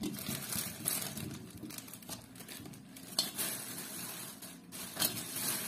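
Thin plastic bags crinkling and rustling as they are handled, with sharper crackles about three seconds in and again about five seconds in.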